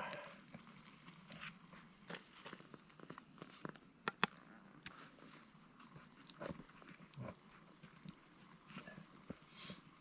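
Wood campfire crackling with irregular sharp pops and snaps, the loudest about four seconds in.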